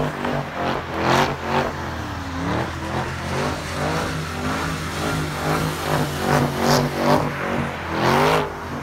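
A car engine revving up and falling back over and over as a car spins donuts on wet pavement, with several short bursts of hiss.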